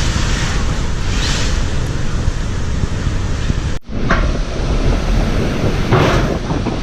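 Cyclone-force wind gusting and buffeting the phone's microphone, a dense rushing noise over a heavy low rumble; it breaks off for an instant about four seconds in, then carries on.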